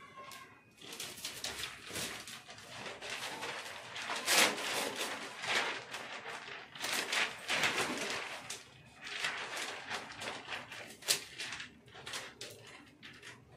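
Self-adhesive marble-pattern vinyl sheet rustling and crinkling in irregular bursts as it is laid and pressed onto a kitchen counter, with one sharp click near the end.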